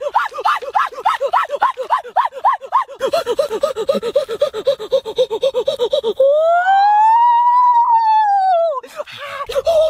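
Comic sound effects: a fast run of short chirping blips, about five a second, then one long whistle-like tone that rises and falls over nearly three seconds, and the blips again near the end.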